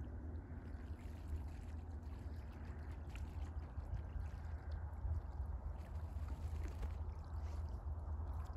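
Steady outdoor ambience at the edge of a pond: a low rumble with a soft, watery wash and a few faint ticks.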